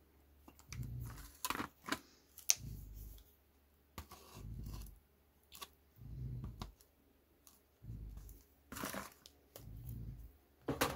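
Slow rhythmic snoring, a low rumbling breath about every two seconds, with a few sharp clicks and crinkles of painting gear being handled.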